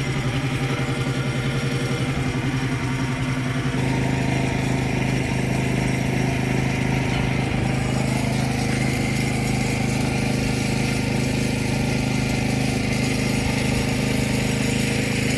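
An engine idling steadily, with an even pulsing for the first four seconds that gives way to a smoother, slightly louder hum.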